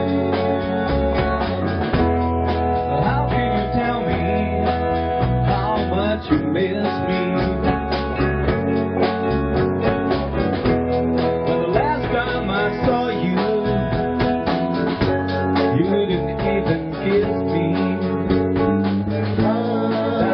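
A song played on guitar and drums, with a singing voice.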